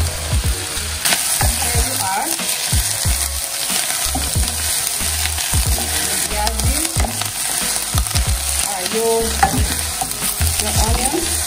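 Potatoes and then sliced red onions sizzling as they fry in butter, with the scraping and clatter of a spoon stirring them in the pan.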